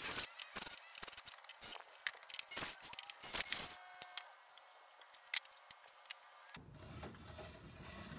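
A run of sharp clicks, taps and light clatter from working with a corded drill and screws on a wooden workbench, over the first four seconds. Then it goes quiet, and a steady low hiss comes in near the end.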